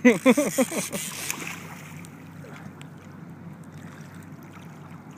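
Jet boat's engine idling steadily with a low hum, under a light wash of wind and water. A brief burst of voice comes in the first second.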